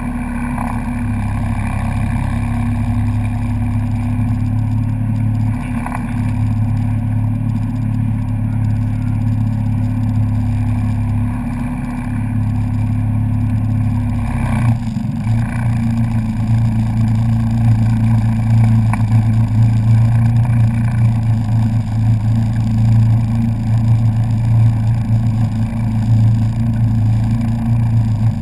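Personal watercraft engine running steadily at speed across open water, with water rushing along the hull; the drone gets a little louder about halfway through.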